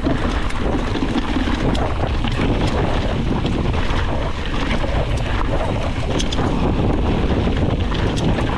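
Wind rushing over the camera microphone while a mountain bike goes fast downhill on a rough trail, with the bike's rattle and scattered sharp clicks and knocks as it runs over stones.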